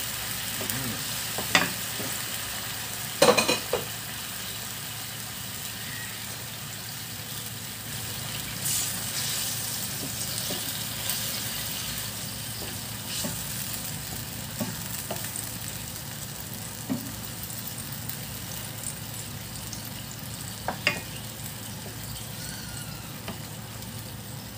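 Sauce sizzling and bubbling in a frying pan while a wooden spoon stirs and bastes. A few sharp knocks against the pan break through, the loudest a quick cluster about three seconds in.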